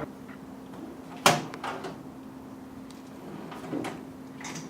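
A few sharp knocks and clinks of tools or metal parts being handled, the loudest about a second in, over a steady low hum.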